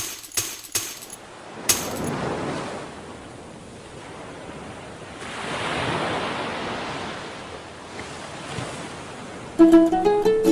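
Ocean surf washing onto a beach, swelling twice, after a few sharp clicks at the start. Plucked string music comes in near the end.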